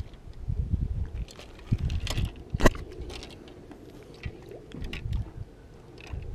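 Handling noise in a small boat: irregular low buffeting and knocks, with scattered small clicks and one sharp click a little before halfway.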